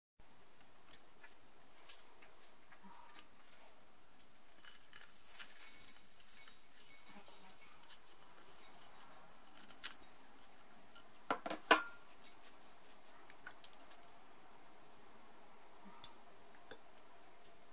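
Glass and ceramic kitchen bowls clinking and knocking lightly while flaked coconut is tipped from one bowl into the other and stirred with a spatula. There is a flurry of small clinks, and a single sharp clink a little before twelve seconds in is the loudest.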